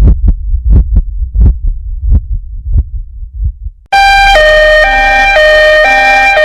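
Heartbeat sound effect: low lub-dub thumps that weaken and fade out about three and a half seconds in. About four seconds in, an ambulance siren effect starts, a two-tone hi-lo siren switching pitch about twice a second.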